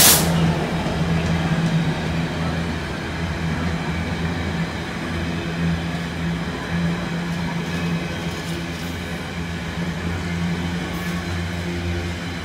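Container freight train rolling past behind a Class 66 diesel locomotive: a steady low rumble of wagon wheels on the rails. A single sharp knock comes right at the start.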